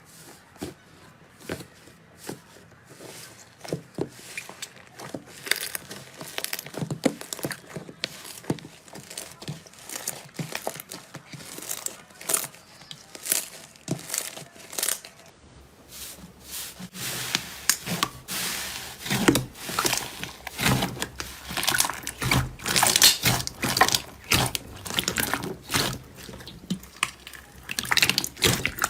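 Slime being squeezed and pressed by hand, giving a dense run of sticky crackles and pops that grow louder and busier about halfway through.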